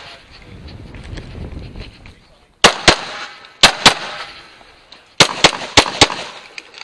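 Semi-automatic pistol firing eight shots in four quick pairs, starting about two and a half seconds in, the two shots of each pair about a quarter second apart.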